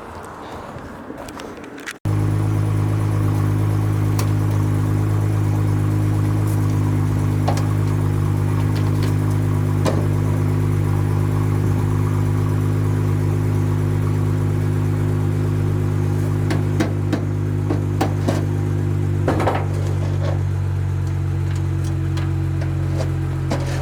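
A steady low hum of a few fixed tones, starting abruptly about two seconds in and holding level, with scattered light clicks and knocks over it.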